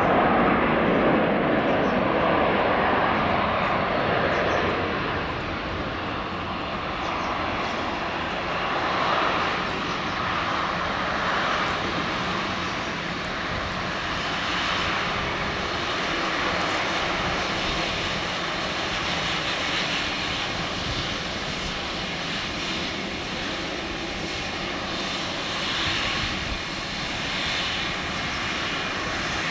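Twin jet engines of an Airbus A319 running at taxi power: a steady jet rumble and hiss with a faint whine. It is a little louder for the first few seconds, then holds steady.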